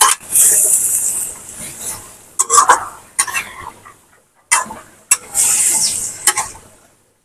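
Metal spatula scraping and clanking against a metal karai (wok) as water lily stems and prawns are stir-fried, with spells of sizzling from the hot pan. There are several sharp knocks of the spatula on the pan rim between the scraping strokes.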